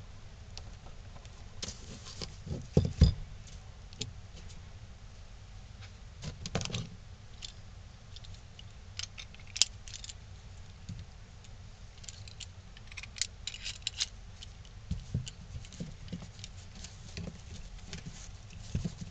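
Wood blocks and a metal bar clamp being handled on a table: scattered clicks, knocks and light metallic rattles as the clamp is slid and tightened onto glued pine blocks. The loudest are a couple of heavier knocks about three seconds in, with a quick run of small clicks a little past the middle.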